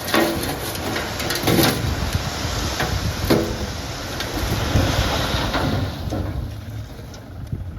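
Diesel machinery working earth: an engine running under a rushing, scraping noise with several sharp knocks, and the scraping fades out about six seconds in.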